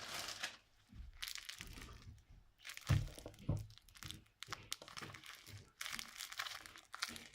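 Paper and plastic crinkling and rustling as homemade paper squishies are handled, in irregular bursts, with two soft bumps about three seconds in.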